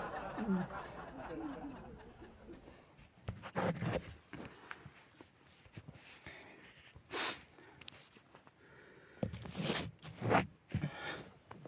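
A person's soft, stifled laughter and short breathy sounds, coming in brief bursts a few seconds apart in a small room.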